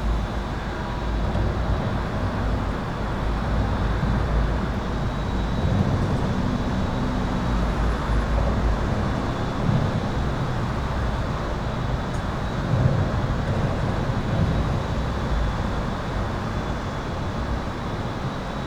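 Highway traffic heard from beneath an overpass: a continuous low rumble of tyres and engines that swells as heavier vehicles pass overhead, with a faint steady high-pitched tone running through it.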